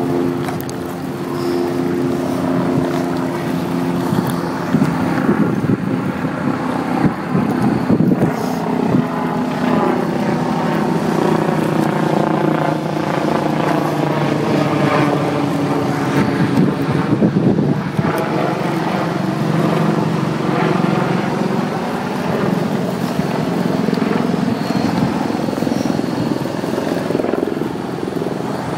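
Steady rumble of wheels rolling fast on asphalt, mixed with wind rushing over the microphone, on a downhill longboard run.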